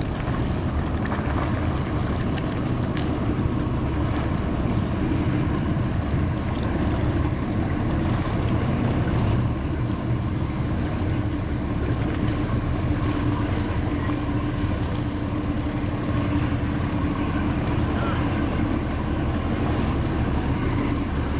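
Engines of a 2000 Sea Ray 510 Sundancer express cruiser running at slow harbor speed: a steady, even low rumble with the wash of water around the hull.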